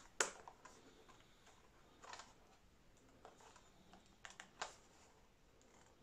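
Faint, scattered plastic clicks and taps from handling a Radiomaster TX16s transmitter as its side grip is prised off, with a small cluster of clicks a little past the middle.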